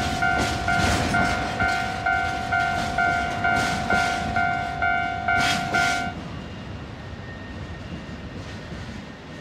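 Japanese electronic level-crossing alarm ringing in two tones about twice a second while a freight train of tank wagons rolls past, its wheels clacking over the rail joints. About six seconds in, the alarm stops as the last wagon clears the crossing, leaving the quieter rumble of the departing train.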